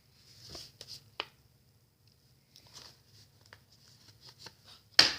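Hands handling small plastic tackle packages: faint rustles and light clicks, a sharper tap about a second in, and a louder knock near the end.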